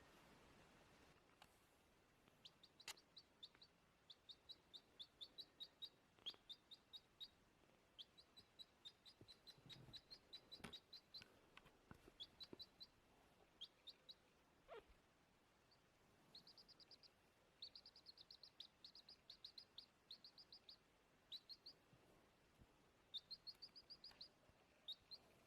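Baby chick peeping: short high cheeps in quick runs of several a second, with brief pauses between runs. A few faint knocks are heard among them.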